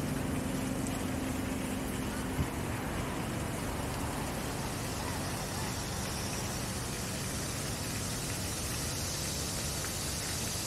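Outdoor city background: a steady wash of traffic noise with a low engine hum that fades over the first few seconds. A steady high hiss comes up in the second half, and there is one light click about two and a half seconds in.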